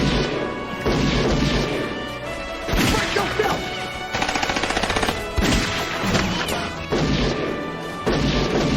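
Film soundtrack music over action sound effects: repeated sharp crashes and hits, with a fast rattling burst of many quick strokes a second about halfway through.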